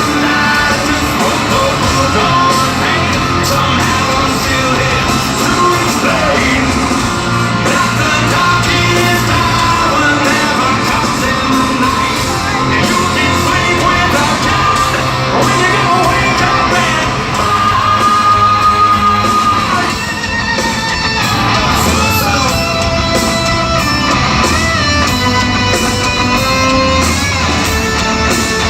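Live hard rock band playing loud, with distorted electric guitars, drums and yelled singing, heard through an amphitheatre's PA. A long held note rings out about two-thirds of the way through.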